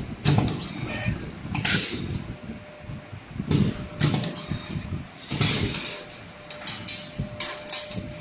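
Semi-automatic wire-folding labeling machine working, a series of short, irregularly spaced hisses and clacks as it folds labels around the items.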